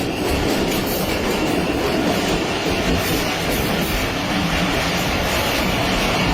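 Jaffar Express passenger train running along the track: steady, loud noise of wheels on the rails.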